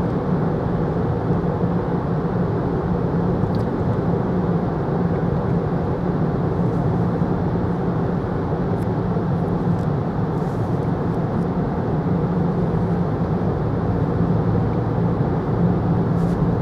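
Steady road noise inside a moving car's cabin, the car driving along a road tunnel in traffic.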